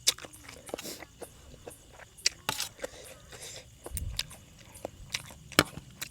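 Close-miked eating: a person biting and chewing a spicy Thai glass-noodle salad, with irregular wet smacks and sharp clicks, the loudest just at the start, about two and a half seconds in and near the end. A faint steady chirring of crickets runs underneath.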